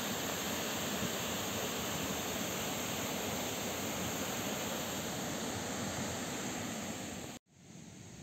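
Steady rush of water pouring through the disused hydro dam. It cuts off abruptly about seven seconds in and gives way to a much quieter hiss.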